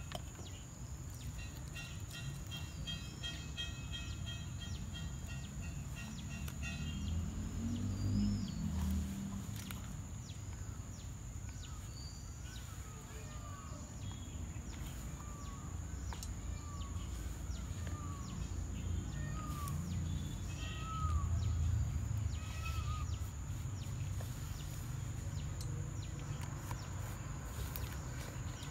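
Rural outdoor ambience: a steady low rumble, with a bird calling in a run of short chirps, about one a second, through the middle stretch, and a thin steady high-pitched tone throughout.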